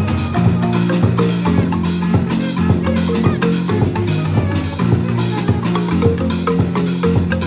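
Marimba band playing live: struck marimba notes, with deep bass marimba notes under them, and drums keeping a steady beat.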